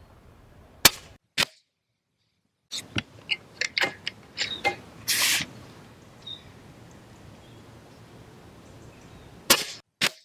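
Airgun Technology Vulcan 2 Tactic .177 regulated PCP air rifle fired twice, a sharp report about a second in and again near the end, each followed by a smaller click about half a second later. In between comes a string of metallic clicks and a short slide, typical of the side-lever being cycled to cock the rifle and index its magazine.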